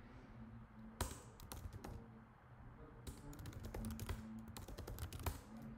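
Computer keyboard typing: faint, scattered keystrokes, with a quick run of keys about three seconds in.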